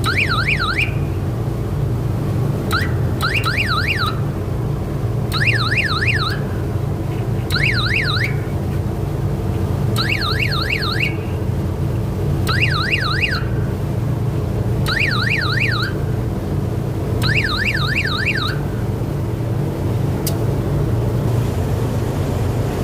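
Electrical panel load-safety alarm sounding in short bursts of a fast up-and-down warbling tone, each about a second long, repeating roughly every two and a half seconds over a steady low hum. The bursts pause for a few seconds near the end.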